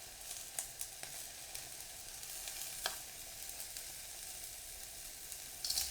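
Spring onions frying in hot avocado oil: a steady sizzle with a few sharp pops and crackles, swelling louder near the end.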